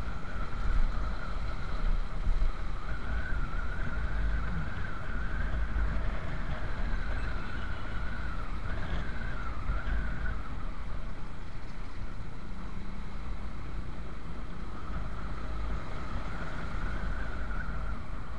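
Motorcycle running at road speed, heard through a rider's microphone with a heavy wind rumble and a steady engine note that wavers slightly up and down.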